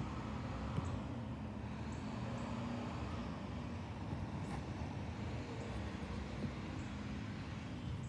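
Yard waste collection truck's engine running steadily at a distance as the truck pulls away down the street.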